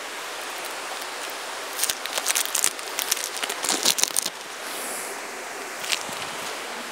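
Plastic cheese wrappers crinkling and crackling as blocks of cheese are opened with a paring knife: a burst of rapid crackles for about two seconds near the middle, and a single click later on.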